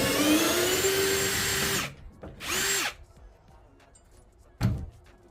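Power drill with a Torx bit spinning out the tailgate bracket bolt. It runs for about two seconds, its pitch rising as it speeds up and then holding, and gives one more short burst. A single knock follows near the end.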